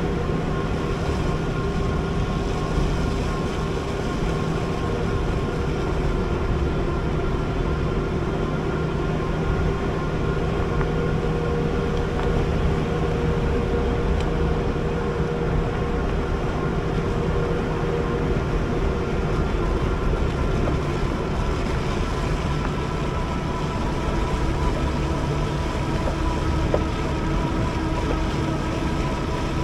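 Electric bike riding along: a steady motor whine over a constant rushing of wind and tyre noise, the whine shifting slightly in pitch past the middle.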